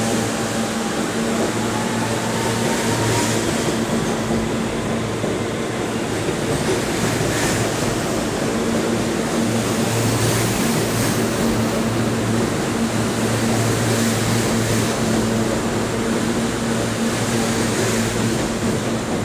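R160 subway train pulling slowly out of an underground station past the platform: a steady motor hum over rolling wheel-and-rail rumble, with a faint whine rising slightly in the first couple of seconds as it gets under way.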